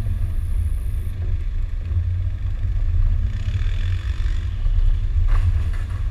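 Land Rover Discovery 2 driving slowly along a grassy off-road trail, heard as a steady, heavy low rumble of engine and body vibration. A short hiss comes partway through, and a single knock about five seconds in.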